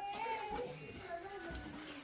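Music with a high, wavering melodic line.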